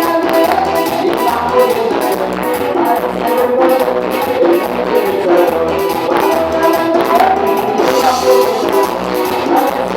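Band music with a steady beat: guitar and drums under a melodic lead line.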